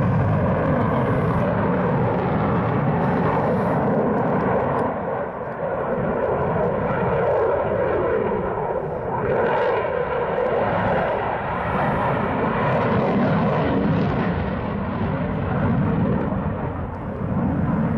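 Eurofighter Typhoon's twin EJ200 turbofan jet engines in a display flight: a loud, continuous jet roar that swells and eases several times as the aircraft manoeuvres.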